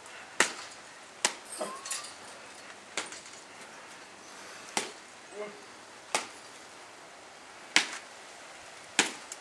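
Totem tennis rally: bats striking the tethered ball, about seven sharp hits at uneven intervals, roughly one every second and a half.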